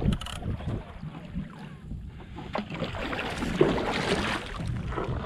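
Kayak paddle strokes sloshing and splashing through choppy sea water, with wind on the microphone. There is a short knock right at the start and a louder swell of water noise past the middle.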